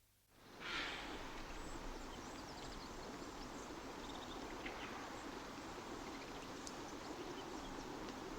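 Outdoor ambience fading in just after the start: a steady background noise with a few faint, short bird chirps over it.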